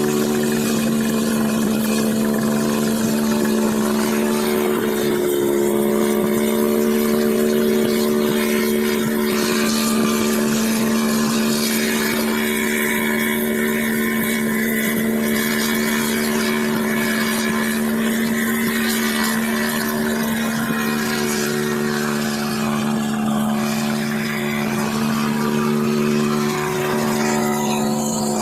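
Engine of a homemade helicopter running steadily at an even pitch, with a constant hum and a noisy wash above it.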